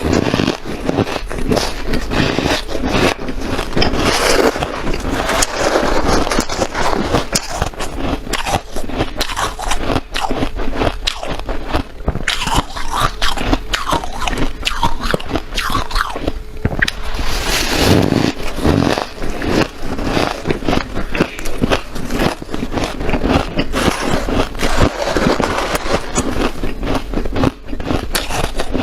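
A person biting and chewing powdery, snow-like ice, giving a dense, continuous run of crunchy, squeaky crackles close to the microphone.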